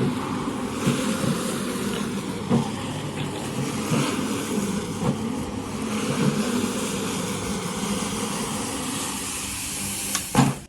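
A motor-driven cleaning machine running steadily, with a few short knocks. It cuts off abruptly just after a loud knock near the end.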